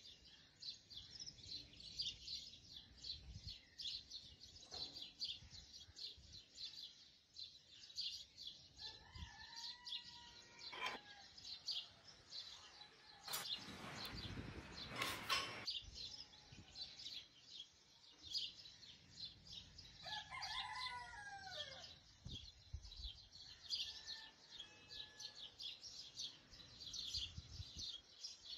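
A rooster crows twice, about a third of the way in and again after two-thirds, over steady rapid chirping of small birds. Two sharp knocks come near the middle.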